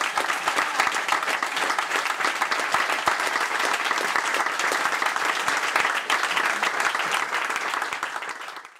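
Audience applauding: a steady, dense clapping that dies away and cuts off abruptly near the end.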